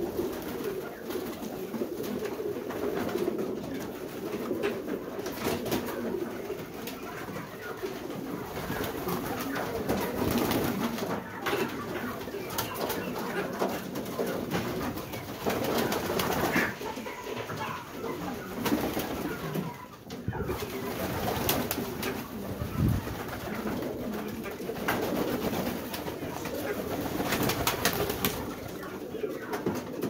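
A flock of domestic pigeons cooing continuously, their low calls overlapping, with frequent short clicks scattered throughout.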